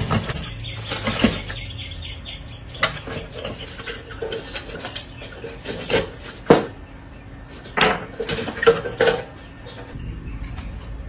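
Tools and metal parts being handled: irregular clinks and knocks, some with a short metallic ring, the loudest about six and a half seconds in.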